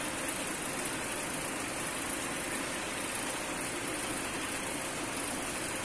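Variable-speed centrifugal pump and its electric drive motor running steadily under test, a constant even noise with a faint steady hum.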